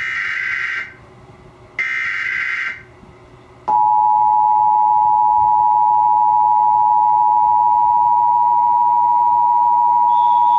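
Emergency Alert System test: the last two of the three digital SAME header bursts, screeching data tones about a second each with a second's gap between them. About three and a half seconds in, the steady two-tone EAS attention signal starts, loud and continuous.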